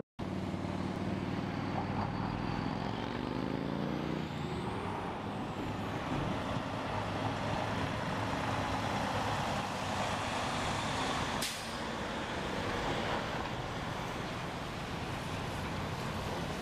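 Diesel engine of a semi tractor-trailer running as the rig pulls slowly through a roundabout, its note rising over the first few seconds as it accelerates. A brief sharp sound comes about eleven seconds in.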